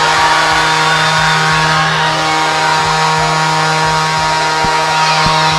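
Arena goal horn blaring steadily over a cheering crowd, signalling a home-team goal.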